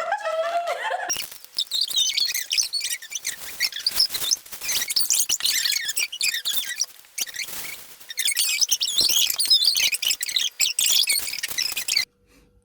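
Many small birds chirping and twittering together in a dense, continuous chorus, which stops abruptly near the end.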